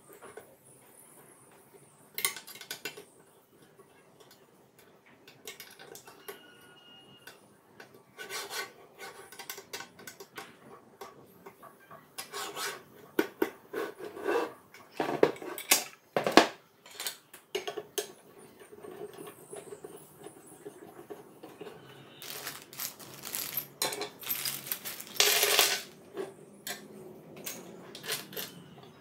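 Parts of an angle grinder stand being handled on a wooden table: irregular clicks, knocks and clatter of the metal rails, plastic frame and base, with small steel bolts and fittings clinking together. The clatter comes in scattered bursts, busiest and loudest in the middle and again in the last third.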